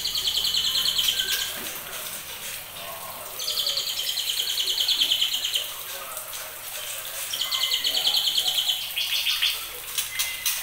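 Juvenile white-rumped shamas, just over two months old, calling in three bursts of rapid high trilling, each about two seconds long, with a shorter burst near the end.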